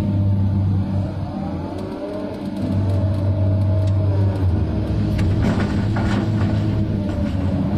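Komatsu 290 excavator's diesel engine and hydraulics working under load, heard from inside the cab; the engine note dips about a second in and builds again before three seconds as the full bucket is lifted and swung. Rock and dirt then clatter into a steel dump truck bed from about five seconds in.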